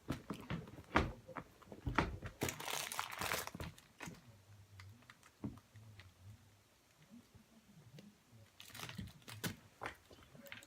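Rummaging through a pile of squishy toys: irregular rustling, crinkling and light clicks of things being handled and moved. It is busiest in the first few seconds and again near the end, with a quieter stretch between.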